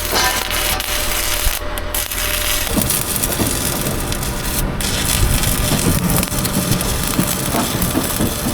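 Electric arc welding on steel I-beams: a continuous crackling, sizzling arc that turns rougher and heavier after about three seconds.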